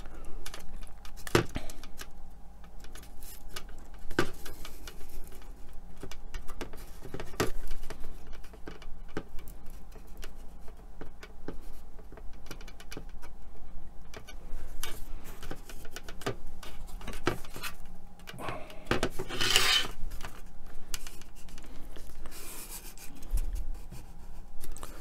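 Hands rubbing and pressing a glued decking strip onto a plastic model deck section, with scattered light clicks and taps of the plastic part against the work surface. A brief louder scraping noise comes about three-quarters of the way through.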